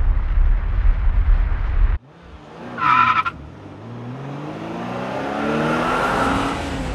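Deep explosion rumble that cuts off abruptly about two seconds in. Then a short tyre screech and a car engine climbing slowly in pitch as it speeds up.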